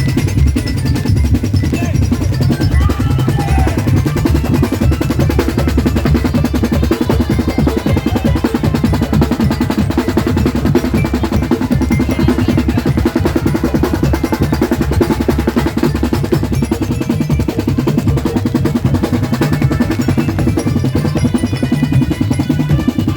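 Loud, drum-heavy parade music: fast, unbroken snare-like rolls over a heavy, booming bass.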